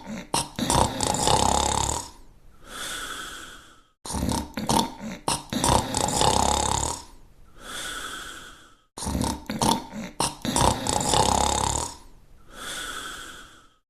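Snoring in a repeating cycle, three times over: a loud, rattling snore lasting about two seconds, then a softer, whistling breath.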